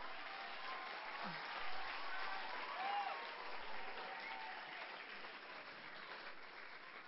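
Audience applauding, loudest a couple of seconds in, then slowly dying down.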